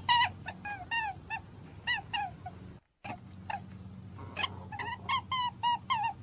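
Rabbit squeaking: rapid, high-pitched squeaks, several a second, each dipping in pitch. They break off for a moment about three seconds in, then carry on.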